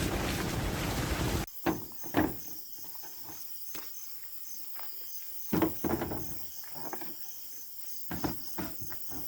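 A loud steady rushing noise cuts off abruptly about a second and a half in. Then insects keep up a steady pulsing chirp, with a few scattered footsteps or light knocks.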